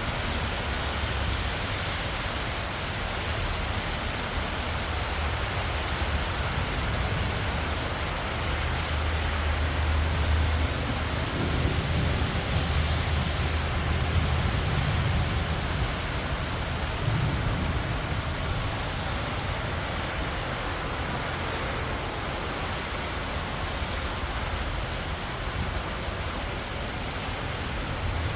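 Heavy rain falling steadily. A low rumble swells up about a third of the way in and fades again after several seconds.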